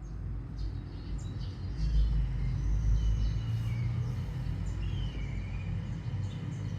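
Several birds chirping and whistling, with short high chirps and a few longer whistled notes that slide in pitch, over a steady low rumble.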